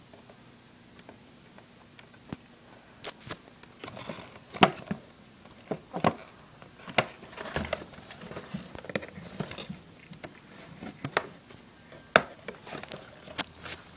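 Cardboard box being handled and worked open: irregular clicks, taps and short scraping rustles of packaging.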